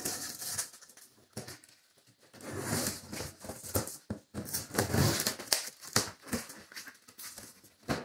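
Scissors slitting the packing tape along the seam of a large cardboard box: irregular scratchy cuts and scraping against the cardboard, busiest in the middle.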